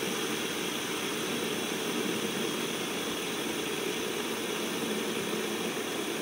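A dozen fidget spinners spinning at once on a hard tabletop, their bearings and blades making a steady whirring drone.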